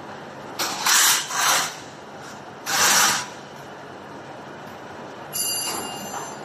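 Three short blasts of hissing compressed air from a handheld air blow gun, about a second apart. Near the end, a brief high whine made of several steady tones.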